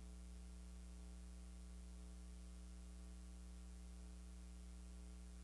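Near silence with a steady low electrical hum and its overtones.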